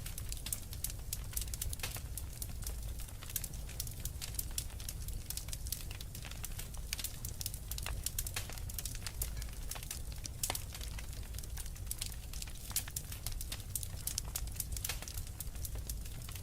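Wood fire crackling, with many quick, irregular snaps and pops over a steady low rumble.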